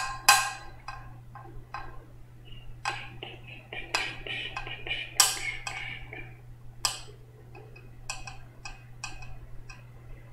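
A series of irregular sharp clicks and taps, a few of them louder, over a steady low hum.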